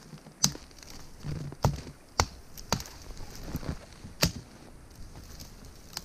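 Dry dead twigs being snapped off a standing tree by hand, with a series of about six sharp, irregularly spaced snaps.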